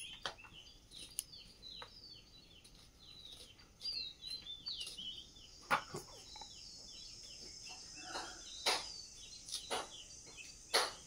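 Small birds chirping in quick, repeated short calls, faint throughout, with a few sharp clicks from a knife cutting cucumber.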